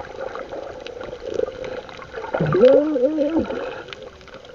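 Water splashing and sloshing, with one drawn-out, wavering call from a person's voice from about two and a half to three and a half seconds in.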